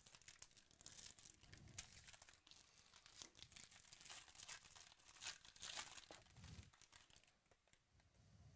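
Foil wrapper of a trading-card pack being torn open and crinkled by hand, a run of soft crackles that dies away near the end.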